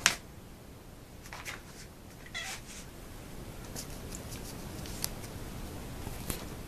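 A domestic cat meowing briefly, one short call with a falling pitch about two and a half seconds in, with a fainter call just before it. A few faint sharp clicks follow.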